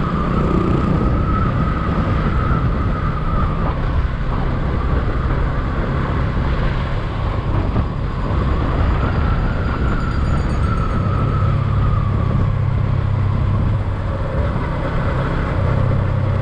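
Motorcycle engine running steadily while riding at road speed, with wind and road noise over it. A thin whine wavers slightly in pitch above the low engine note.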